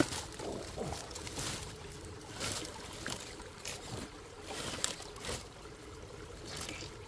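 RC rock crawler creeping over sticks and dead leaves: irregular crackles and snaps of twigs and leaf litter under its tyres, over the trickle of shallow creek water.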